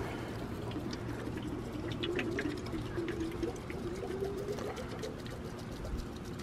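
Water pouring and gurgling out of an upturned drink can onto grass, with a wavering tone that is strongest from about two seconds in to about five.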